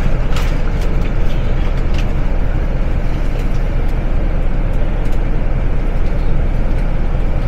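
Steady low rumble of a coach bus's engine and running gear heard from inside the passenger cabin, with a couple of light clicks or rattles about half a second and two seconds in.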